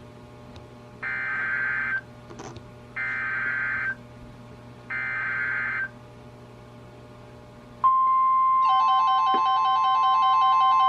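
NOAA Weather Radio Emergency Alert System activation for a flood warning. First come three one-second bursts of buzzy SAME header data, a second apart. Then the steady single-pitch weather alert tone sets in, and about a second later a second alarm of several tones joins it, pulsing in a regular pattern.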